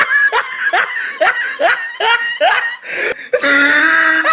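The 'oh no no no' meme laugh: hysterical laughter in short rising bursts, a little over two a second, breaking into a long, shrill, held laugh near the end.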